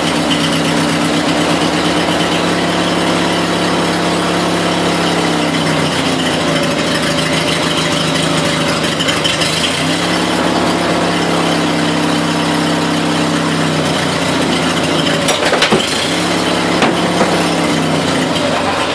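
20 hp Briggs & Stratton opposed-twin engine running on a bench stand on its freshly rebuilt fuel pump. Its speed sags and picks back up twice, with a few sharp clicks about fifteen seconds in.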